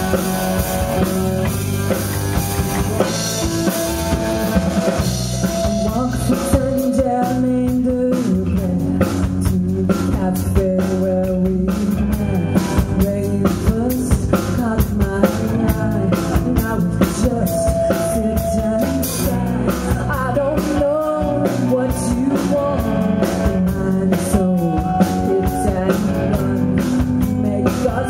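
Live rock band playing: drum kit, amplified electric guitar and bass guitar. The drum hits grow sharper and more prominent about six seconds in.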